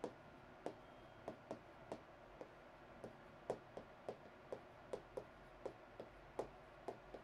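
Chalk tapping on a chalkboard while words are written: faint, irregular clicks, two to four a second.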